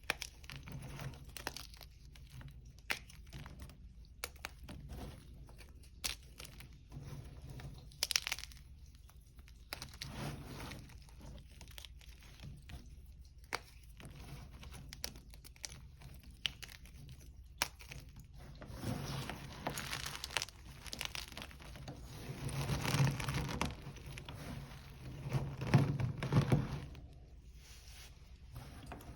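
Hard, crunchy gym chalk being crushed: scattered sharp cracks and snaps, then denser, louder stretches of crunching and crumbling in the last third.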